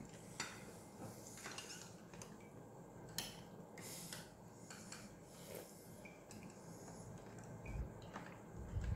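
Several faint, scattered clinks of eating utensils against plates and bowls: spoon, fork and plastic training chopsticks knocking the dishes as children eat.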